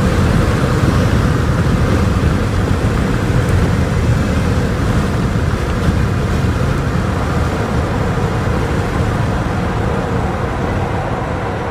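Steady low rumble of a moving motor vehicle, with a faint steady hum above it.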